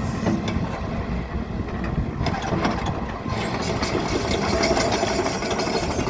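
Case CX135SR excavator's diesel engine running. About two seconds in, the sound brightens and a run of short clanks and rattles joins it.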